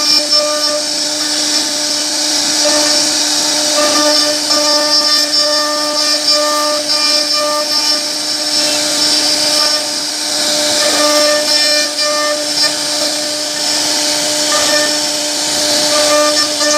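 CNC router spindle running with a steady whine as its bit carves a wooden board, over a steady high hiss.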